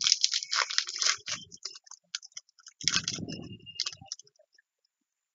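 Crinkling and tearing of a foil trading-card booster pack wrapper, with cards being handled, in two spells of crackling, the second about three seconds in, then quiet.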